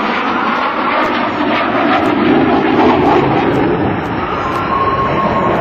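Twin jet engines of an F-15C Eagle fighter running at high power during a demonstration pass, heard as a loud, steady rush of jet noise. A thin steady whine joins in during the last second or so.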